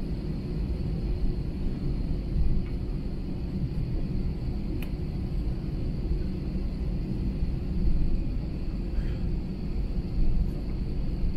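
Steady low rumble of an Airbus A321 taxiing, heard from inside the cabin, with a faint steady high whine over it and a few small swells in level.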